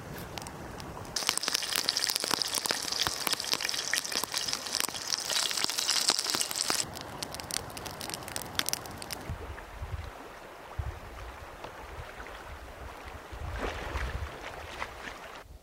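Water splashing and rushing, loud for about six seconds starting a second in, then dying down to quieter water with low rumbling bumps.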